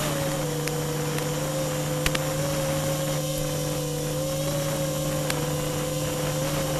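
FPV quadcopter's motors and propellers buzzing steadily in flight, the pitch wandering slightly up and down with throttle. Underneath are a constant lower hum and hiss.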